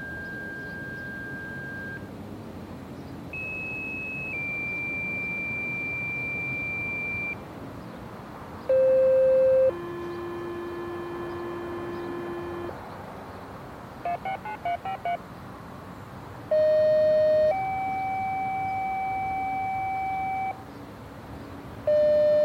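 A sequence of steady electronic tones, each held for one to three seconds before jumping to a new pitch. Several come in pairs: a short, louder tone followed by a longer one. A quick run of about six short beeps comes about halfway through.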